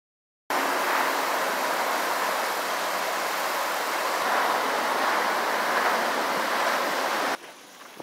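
Fast-flowing creek water rushing steadily. It starts abruptly about half a second in and cuts off abruptly near the end.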